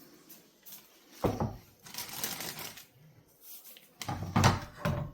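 Kitchen handling noises while a steak is readied: a sharp thump about a second in, a rustle, then a cluster of knocks near the end.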